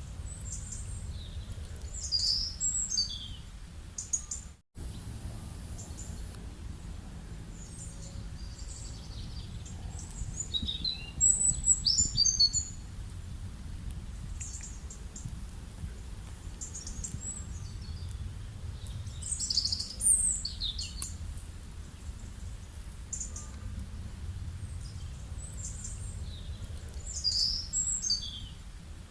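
Birds singing in short bursts of high chirps, returning about every eight seconds, over a steady low background rumble of rural ambience.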